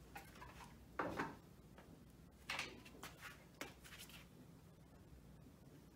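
Faint handling noises as a whiteboard marker is taken from a plastic basket on the board's ledge: a bump about a second in, then a few quick clicks and taps a little later.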